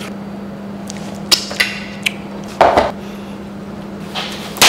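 Metal spoon clinking and scraping against a stainless steel bowl as a thick marinade is stirred and spooned out, with a few sharp clinks and a louder scrape about two and a half seconds in. A steady low hum runs underneath.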